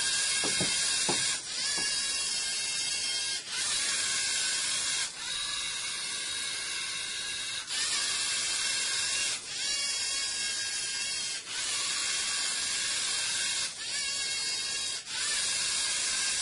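LEGO EV3 robot's electric drive motors and plastic gear trains whirring as the robot drives and turns. It stops briefly every one to two seconds between moves, about eight times.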